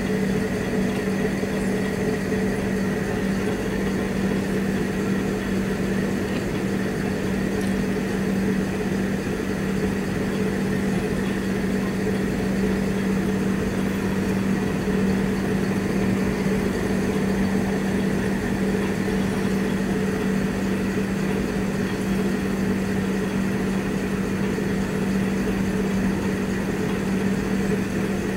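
Steady mechanical hum of a running motor, a low constant drone that never changes in pitch or level.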